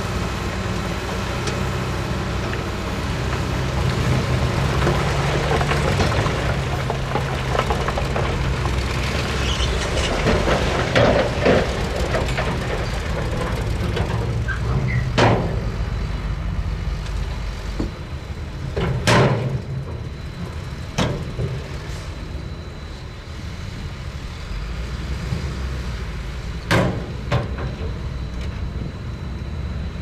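Heavy earthmoving machinery working: diesel engines running steadily, with several sharp metallic clanks and bangs in the second half.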